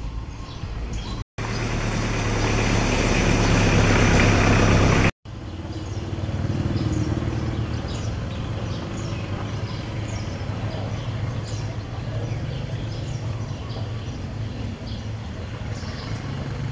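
A motor vehicle's engine running close by, growing louder for about four seconds and cut off abruptly at both ends. It is followed by a fainter, steady engine hum with short high chirps over it.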